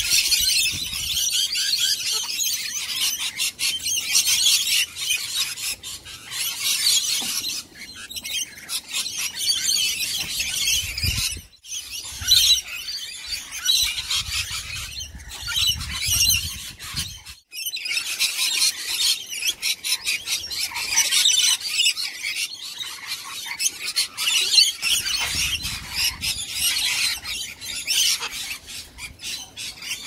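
A large flock of rainbow lorikeets screeching and chattering nonstop, a dense high-pitched din that drops out briefly twice, about 11 and 17 seconds in.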